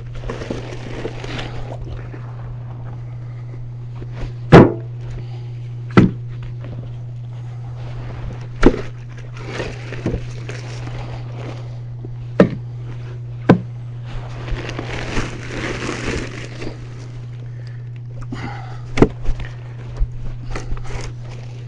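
Pieces of frozen firewood knocking against each other as they are handled and stacked, with about six sharp wooden knocks spread a few seconds apart and a rustle partway through. A steady low hum runs underneath.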